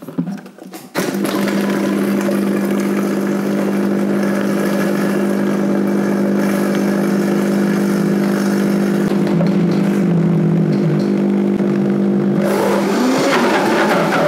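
Vitamix blender motor starting about a second in, after a few knocks, and running at a steady high pitch as it blends a thick date and cashew-butter caramel pressed down with the tamper stick. Near the end the steady tone turns rougher.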